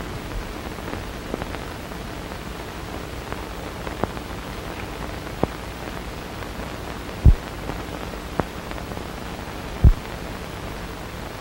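Steady hiss of an old film soundtrack, with a few scattered clicks and two louder low thumps near the end.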